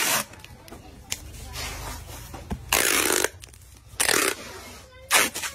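Clear packing tape being pulled off its roll in several short screeching rips and pressed onto a cardboard carton to seal it. The longest rip comes about three seconds in.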